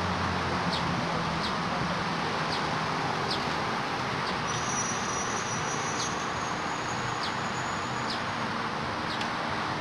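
Outdoor ambience: a steady hiss with a short high chirp repeating about once a second. A low hum fades out in the first second or two, and a thin high whine runs for a few seconds in the middle.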